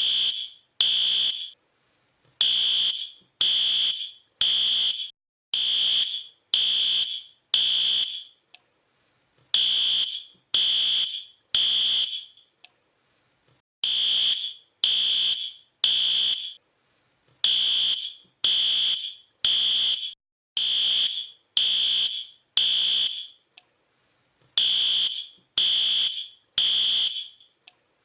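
Fire alarm sounding in the temporal-three pattern: groups of three loud, high-pitched beeps, each about half a second long, with a short pause between groups, repeating steadily.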